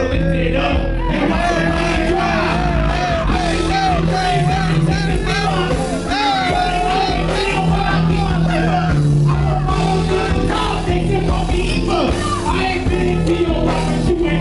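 Loud live band music: a singer's drawn-out, wavering vocal line over sustained low bass notes.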